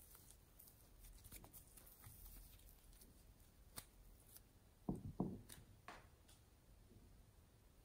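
Faint handling of a lump of pink slime, stretched and squeezed by hand with soft sticky sounds and a few light clicks, then a couple of soft thumps about five seconds in as it is set down in a plastic tray.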